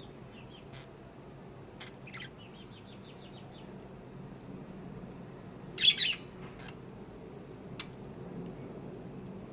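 Pet lovebirds chirping: short scattered calls, a quick run of about eight short chirps around three seconds in, and the loudest call about six seconds in, over a low steady background hum.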